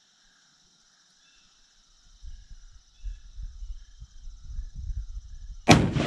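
A single rifle shot about five and a half seconds in, sharp and very loud with a long echoing tail, fired while sighting in a hunting rifle. Before it, steady chirping insects and low rumbling noise on the microphone.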